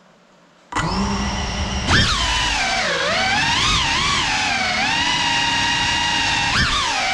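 Brushless motors and ducted propellers of a GEPRC CineLog35 cinewhoop drone. They start spinning with a sudden steady low hum under a second in, then throttle up about two seconds in, and the whine rises and falls in pitch as the drone takes off and flies.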